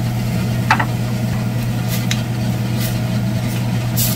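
Bone broth boiling in an earthenware pot on a gas burner, under a steady low hum, with a few light clicks as wooden chopsticks stir noodles in the pot.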